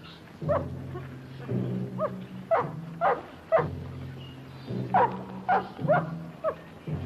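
A dog barking repeatedly, about nine sharp barks in quick runs, over a low steady drone.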